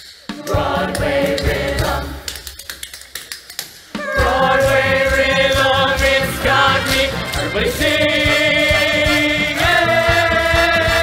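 A musical-theatre ensemble singing together in chorus. It is quieter for the first few seconds, then from about four seconds in the cast sings loud, long held notes.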